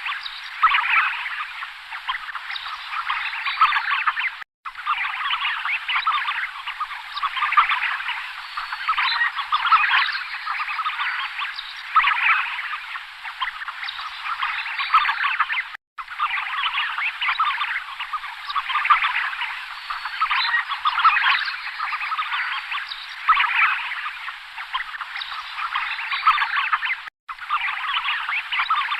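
A flock of tufted ducks calling: a dense, unbroken chorus of many short overlapping calls, interrupted by brief silent cuts about four and a half, sixteen and twenty-seven seconds in.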